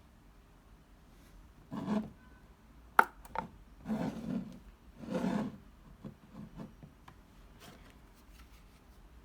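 Rubbing and scraping handling noises in several short bursts, with two sharp clicks about three seconds in.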